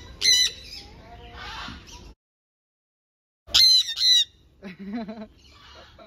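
Jenday conures giving loud, shrill squawks: one call just after the start and two more about three and a half seconds in. A dead-silent gap of about a second and a half falls between them.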